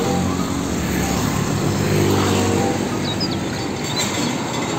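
Car-carrier truck driving along a road, its diesel engine running steadily amid traffic noise. A few faint bird chirps come in about three seconds in.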